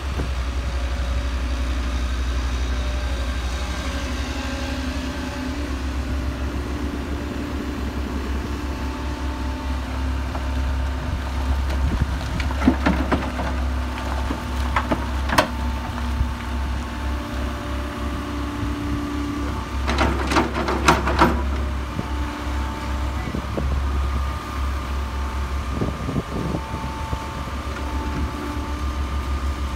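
Diesel engines of a Case tracked excavator and a dump truck running with a steady low rumble, the pitch shifting as the machine works. Several sharp clanks and knocks cut through, a few about twelve to fifteen seconds in and a cluster about twenty seconds in, as the bucket loads soil and rock into the dump truck's bed.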